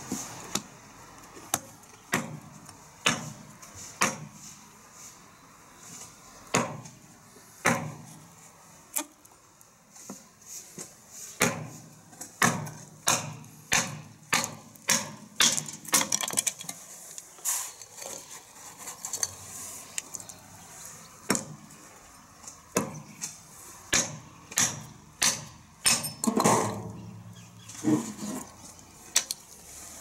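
Small steel camp hatchet splitting a short piece of firewood: a long series of sharp knocks as the blade bites into the wood and the wood, with the blade stuck in it, is struck down onto a concrete block. The knocks come irregularly, quickening to about two a second in places.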